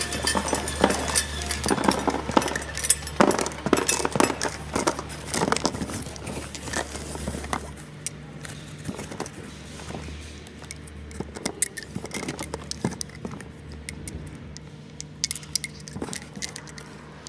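A vial labeling machine runs with a steady low hum while small glass vials clatter and click along it. About eight seconds in the hum drops and the clatter gives way to sparse clinks of small amber glass vials knocking together as they are handled.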